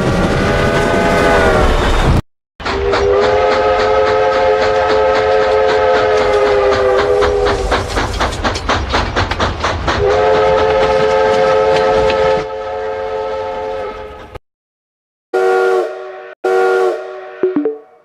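Several separate recordings of a train's multi-note chime whistle. One long blast over train rumble ends with a slight drop in pitch about two seconds in. Next, a passing train rumbles and clatters quickly while sounding two long whistle blasts, and the sound fades out. After a pause come two short toots.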